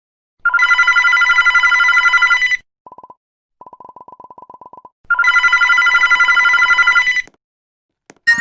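Telephone ringing: two loud trilling rings of about two seconds each, about 2.5 seconds apart, with faint rapid ticking between them. A sharp metallic clink comes just before the end.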